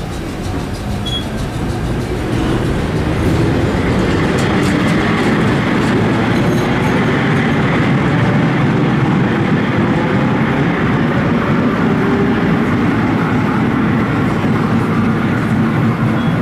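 Vintage 1930s R1-9 subway train running on the rails, growing louder over the first three seconds and then steady, with wheel and rail rumble and a few clicks.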